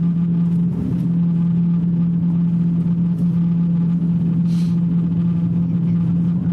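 Steady cabin drone inside an Airbus A350-900 taxiing: a low rumble with one steady humming tone, and a brief hiss about four and a half seconds in.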